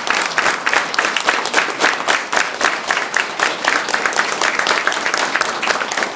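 A crowd applauding: many people clapping at once in a dense, steady patter that eases slightly near the end.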